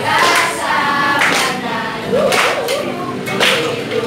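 A group of voices singing a song together, with sharp hand claps keeping time about once a second.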